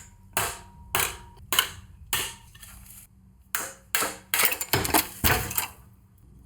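Hammer knocks on a steel CV joint as it is tapped apart for disassembly: a series of sharp metallic knocks with brief ringing, about one every half second, then after a pause a quicker cluster of strikes.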